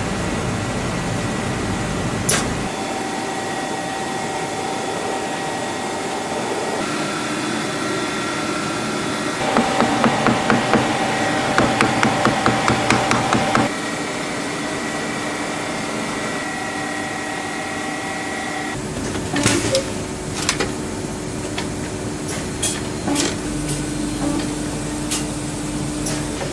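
Shoe-repair workshop sounds: a quick run of hammer taps lasting about four seconds in the middle, then scattered knocks and clicks near the end, over a steady background hum.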